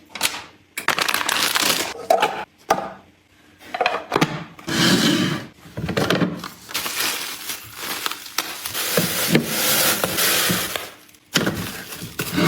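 Household items being handled and set down in a kitchen: a run of sharp clicks and knocks, with longer stretches of rustling in the middle.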